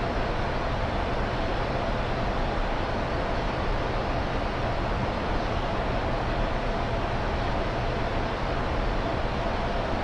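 Steady flight-deck noise of a Boeing 747-400 freighter in descent: a constant rush of airflow and air conditioning, with a faint steady tone running through it.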